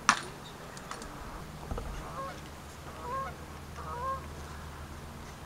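A goose honking: three short calls with a bend in pitch, a little under a second apart, starting about two seconds in, over a low steady rumble of wind. A sharp click right at the start is the loudest thing.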